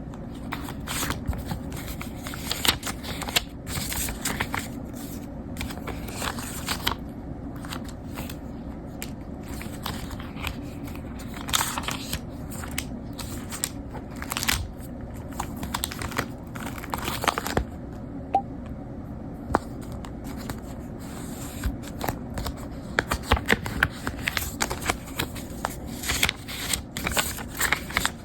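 Hands handling paper and small objects: repeated rustling, scraping and short sharp clicks, over a steady low hum.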